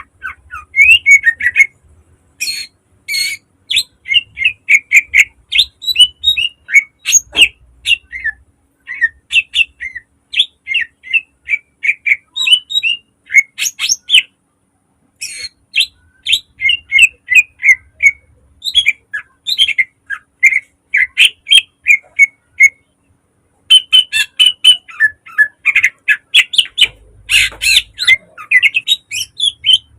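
Cucak ijo (green leafbird) singing a fast, dense run of sharp chirps and short whistled phrases, with imitated songs of other birds worked in. It breaks off briefly about halfway and again about three-quarters of the way through.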